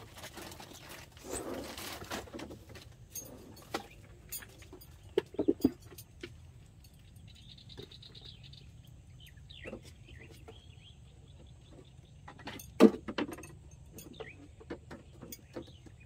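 Camp cooking gear being handled: scattered clinks, taps and knocks, with a rustle near the start and one sharp knock about thirteen seconds in.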